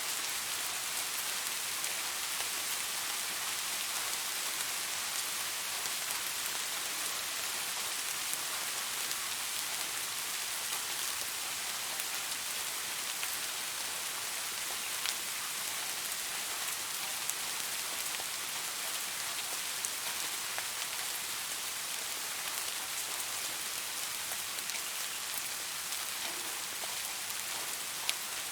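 Steady rain falling on leaves: an even hiss of drops, with a few sharper single drop ticks scattered through it.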